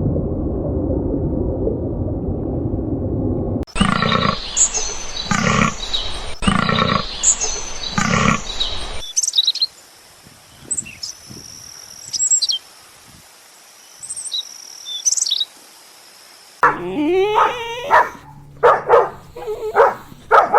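A string of short animal-sound clips cut together. A low rumbling noise gives way to loud calls repeated about every second and a half, then high bird chirps over a quiet background, then wavering calls near the end.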